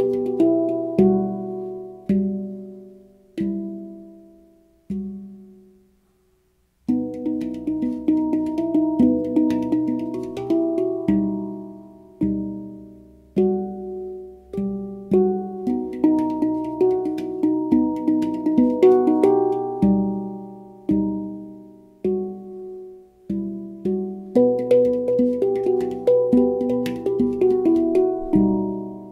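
Pantheon Steel Halo handpan (2015, Onoleo tuning) played solo by hand. A few sparse notes ring out and fade to a brief silence about six seconds in. The playing then resumes with quick rhythmic strikes and notes ringing over one another.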